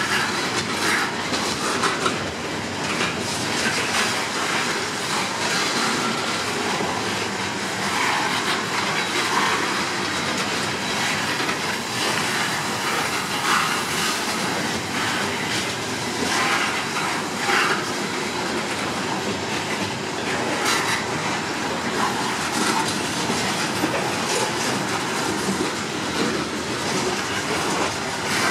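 Norfolk Southern coal train's open-top hopper cars rolling past: a steady rumble and clatter of steel wheels on the rails.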